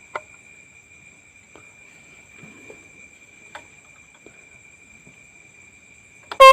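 Two sharp clicks and a few faint ticks over a faint steady high-pitched tone, then right at the end a Roots windtone electric horn starts a loud blast as it is tested during adjustment of its tuning screw.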